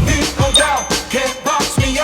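Background music: an upbeat rock and hip-hop song with a steady drum beat.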